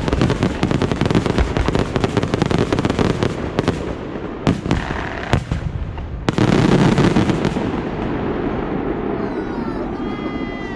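Fireworks going off: dense, rapid crackling of many bursts, thinning to a few separate sharp bangs about four and five seconds in, then one last loud burst about six seconds in that dies slowly away.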